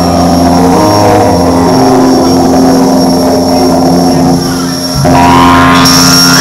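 Loud experimental drone music played live: layered sustained tones that shift in pitch, with a brief dip about four and a half seconds in. A brighter, harsher layer comes in about five seconds in.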